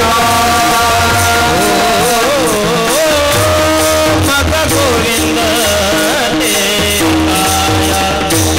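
Men singing a Warkari kirtan melody (chal) together, with brass taal hand cymbals struck in a steady rhythm.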